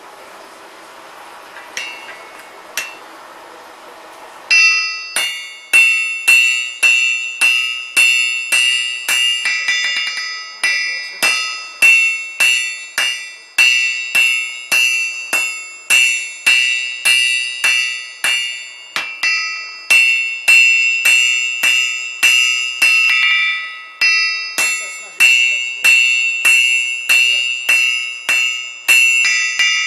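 A blacksmith's hammer striking hot iron on an anvil. Each blow gives a high, bell-like ring that fades before the next. The blows begin about four seconds in and keep a steady rhythm of about three every two seconds, with a short break near the end.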